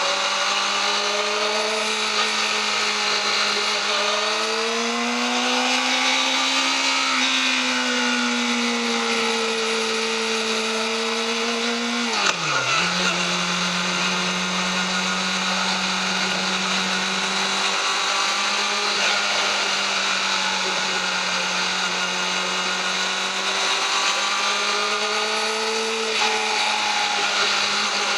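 Yamaha YZF-R6's inline-four engine through its stock exhaust, running at steady high revs under way. About twelve seconds in the pitch dips sharply and settles lower, like a gear change, then slowly climbs again.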